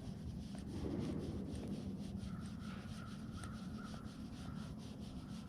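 Faint clicks and scraping of small metal parts being handled and fitted together by hand, over a steady low hum.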